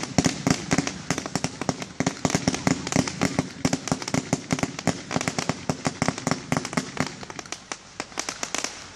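Fireworks going off in rapid succession: many launches and bursts with dense crackling pops, several a second, thinning out near the end.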